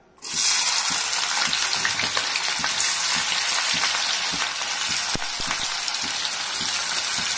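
Chopped onions and green chillies hitting hot oil and sizzling as they fry. The sizzle starts suddenly just as they go in and stays loud and steady.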